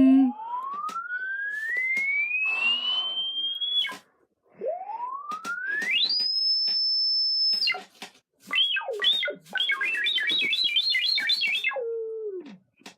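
A child making sound effects with a pure, whistle-like tone. It glides up slowly for about four seconds and breaks off, then sweeps up to a high held note. After some wide swoops comes a fast siren-like warble, and it ends on a low note that slides down.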